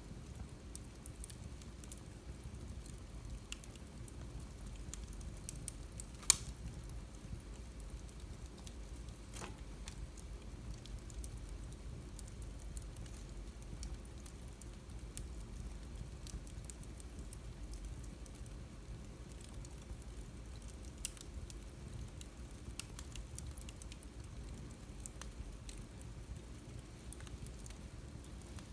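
Wood fire crackling in a fireplace: a steady low rumble of flames with frequent small snaps, and a sharp, loud pop about six seconds in and smaller ones later.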